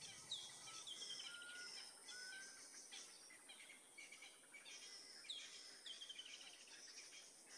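Faint birdsong over a faint outdoor hiss: a bird sings the same short phrase twice, a downward-sliding note running into a quick trill, with a few thin short whistles between.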